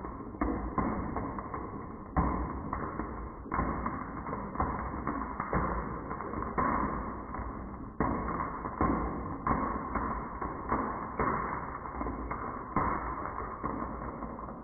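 Marbles rolling down a wooden HABA marble run, a continuous rolling rumble broken by frequent, irregular clacks as they strike the track and drop between sections. The sound dies away at the very end.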